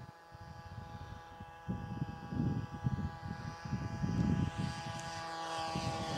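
Radio-controlled model aeroplane's motor and propeller whining steadily, growing louder as it approaches, with wind gusting on the microphone.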